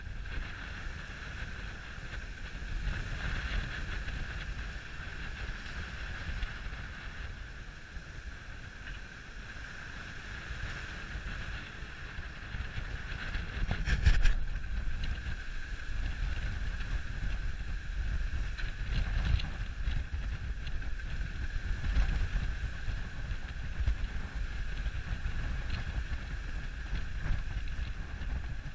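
Wind buffeting the microphone aboard a schooner under sail, with a steady high-pitched whine and a single sharp knock about halfway through.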